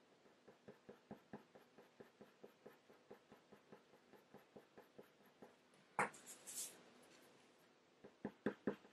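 Coloured pencil (Faber-Castell Polychromos) scratching faintly on hot-press watercolour paper in quick short strokes, about five a second, as small fur markings are laid in. About six seconds in there is a louder brief scrape, and a few sharper strokes come near the end.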